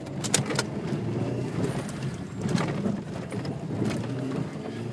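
Turbocharged Toyota Corolla four-cylinder engine running, heard from inside the cabin, with several sharp knocks and clatters as the car goes over rough dirt track.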